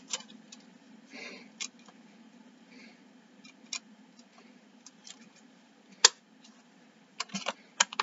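Light clicks and taps of a plastic CD case and its booklet being handled, sparse at first, with a sharper click about six seconds in and a quick run of clicks near the end.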